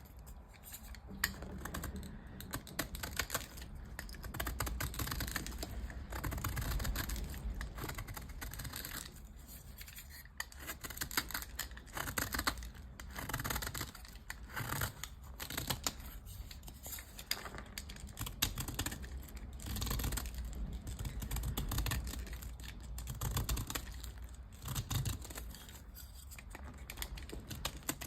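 Blocks of dyed gym chalk being crunched and crumbled, a dense run of small crisp crackles that swells and eases every few seconds.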